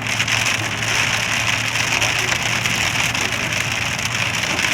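Heavy rain pouring down, a steady, even hiss with a faint low hum underneath.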